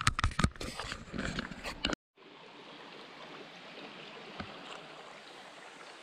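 Irregular knocks and rustling for about two seconds, then, after a sudden break, the steady, even wash of a shallow creek flowing over rocks.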